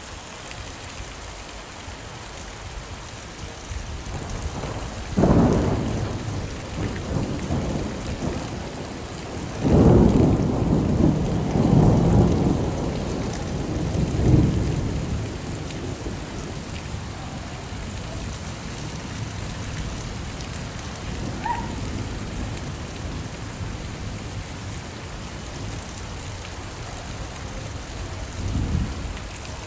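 Steady rain with thunder: a sudden clap about five seconds in, a long rolling rumble from about ten to fifteen seconds in, and a fainter rumble near the end.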